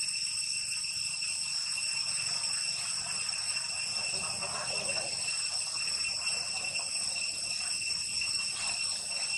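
Steady, high-pitched drone of insects: one unbroken tone with its overtones, under a faint hiss.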